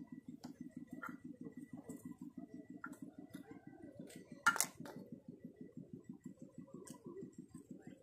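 Light clicks and knocks of blue PVC pipe lengths and fittings being handled and fitted together, with one sharp knock about four and a half seconds in, over a faint low pulsing of about six or seven beats a second.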